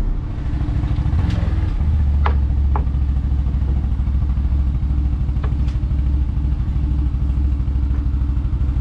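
For about the first two seconds, road noise inside a moving car. Then a CF Moto Gladiator 1000 quad's engine idling steadily, with a few light clicks and knocks.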